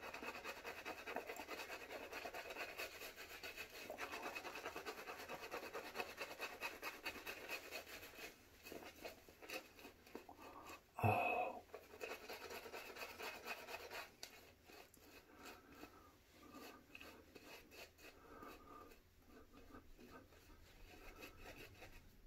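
Badger shaving brush working lather over the face: a fast, faint scratchy brushing, busier at first and lighter in the second half. A short, louder sound cuts in about eleven seconds in.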